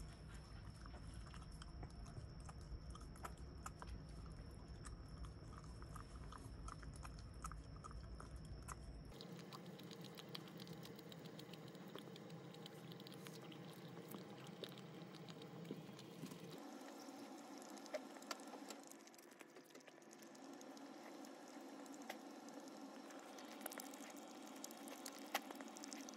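A Shiba Inu eating from a ceramic bowl, faint, with many small wet chewing and licking clicks as it crunches its food.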